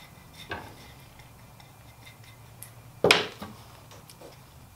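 Wooden frame pieces handled on a workbench: a light knock about half a second in, then one loud, sharp wooden clack about three seconds in as a board is set down or knocked into place, with a few faint ticks.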